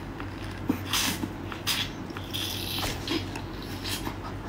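Wet sucking and slurping as the meat is drawn out of a cooked lobster tail shell, in several short hissing slurps, close to the microphone.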